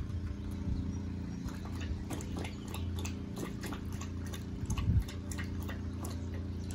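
A puppy lapping water from a stainless steel bowl: a quick, irregular run of short wet laps, several a second, over a low steady hum.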